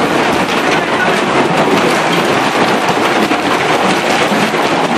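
Hailstorm: hailstones falling hard, a dense, steady patter of countless small impacts with no let-up.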